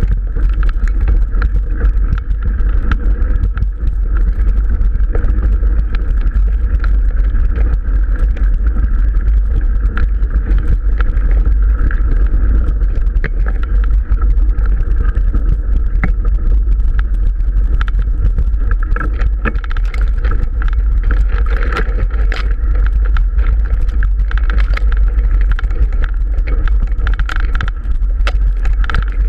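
Mountain bike ridden along a rough dirt singletrack, heard through an action camera's microphone: a loud, steady rumble of wind buffeting and the bike shaking over the ground, with many small rattles and ticks throughout, and tall grass brushing past.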